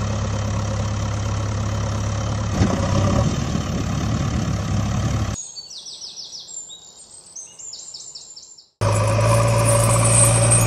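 Heavy vehicle engine running steadily, cutting off abruptly about five seconds in. A few seconds of bird chirps follow, and then the engine sound starts again abruptly near the end.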